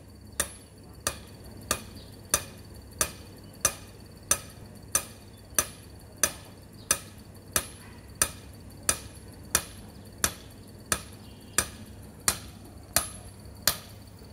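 Club hammer striking the top of a steel earthing rod in a steady rhythm, about three blows every two seconds, driving the ground electrode into the soil; each blow is a sharp metallic knock with a brief ring. The blows stop near the end.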